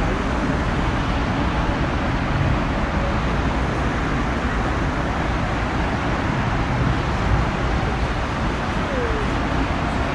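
Bombardier Global Express business jet's twin Rolls-Royce BR710 turbofans at takeoff thrust as it lifts off and climbs away: a steady, even roar heard from a distance.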